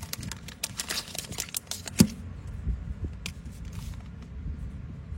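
Handling of a metal flip-top lighter: a quick run of sharp clicks, one louder knock about two seconds in, then a few scattered clicks.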